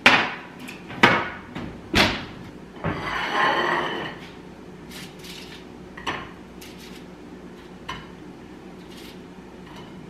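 Kitchen clatter: an oven door being shut and a metal baking tray set down on the stovetop, heard as three loud clanks about a second apart followed by a short scraping slide. A few light clinks follow as waffles are put on a plate.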